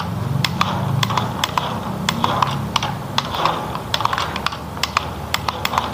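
Cheap remote-control toy dump truck driving across a wooden tabletop: its small electric motor and gearbox hum steadily under rapid, irregular clicking.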